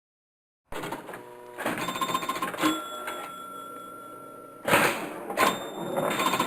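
Pinball machine in play, starting after about three quarters of a second of dead silence: rapid mechanical clatter with electronic tones, a held beep in the middle, and two loud knocks about five seconds in.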